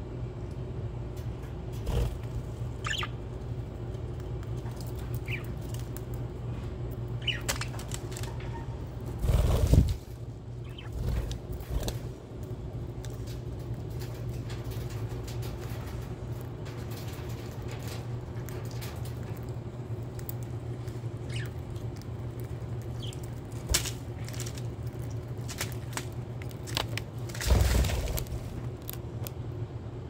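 Budgerigars in an aviary giving a few short, sparse chirps over a steady low hum. There are two louder rustling bursts, one about a third of the way in and one near the end.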